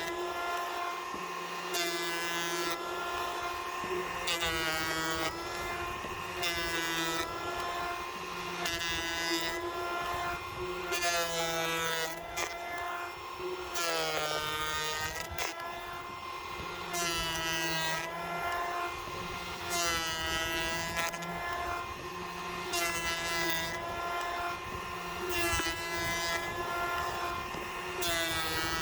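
Ryobi 18-volt cordless hand planer running with a steady whine, making repeated passes over rough-sawn cedar. About every two seconds the cutter bites, the pitch sags and a burst of cutting noise rises, then the whine recovers as the pass ends. It is taking 1/32-inch cuts to remove chainsaw marks.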